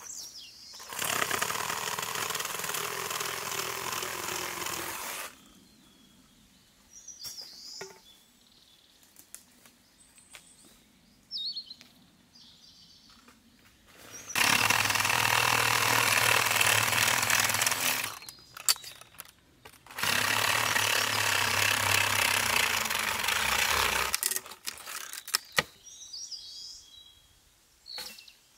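Chainsaw cutting into a fallen tree trunk in three bursts of a few seconds each: one about a second in, and two close together in the second half. Between the cuts the saw goes quiet and small birds chirp.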